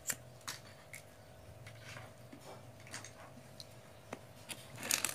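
Scattered small clicks and rustles of hands handling fishing tackle and a plastic bag, with a louder burst of rustling near the end, over a faint steady hum.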